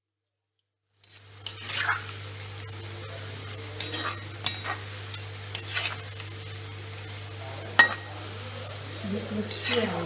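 Papaya slices frying in hot oil in a wok, a steady sizzle that starts about a second in, with a metal slotted spoon scraping and clinking against the pan several times as the pieces are stirred. A steady low hum runs underneath.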